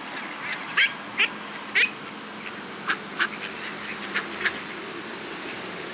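Mallard ducks in a flock quacking: about seven short, scattered calls, the loudest two about a second and two seconds in.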